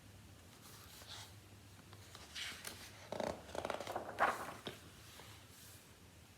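Paper rustling and swishing as a picture book's page is turned and handled: a brief rustle about a second in, then a cluster of louder swishes in the middle.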